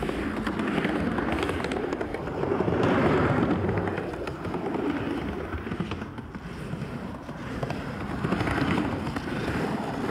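Skateboard wheels rolling over a pump track's rollers: a rough rumble that swells and fades several times as the board rides the waves.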